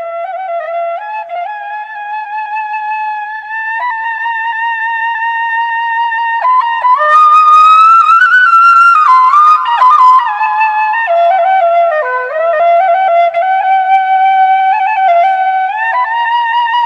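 Solo flute playing a slow melody with sliding bends and ornaments, growing louder over the first few seconds, with a breathier, more airy passage in the middle.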